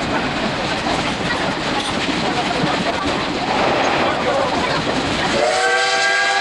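Steam train running, a steady rushing rumble and clatter of wheels on rail heard from a passenger coach. About five and a half seconds in, the C12 steam locomotive's whistle sounds for about a second, several notes at once, and cuts off sharply.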